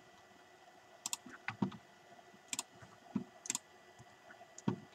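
Clicks of a computer mouse and keyboard keys while editing a document: a few sharp clicks about a second apart, mixed with duller taps.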